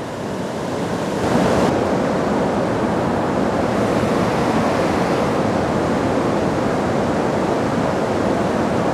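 Loud, steady rushing noise outdoors, building over the first second or so and then holding level.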